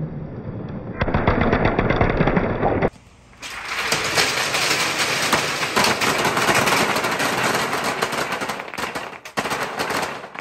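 Dozens of billiard balls rolling down a perforated board chute and clacking against one another as they pile up in a wooden trough: a dense, rapid clatter, broken by a short lull about three seconds in.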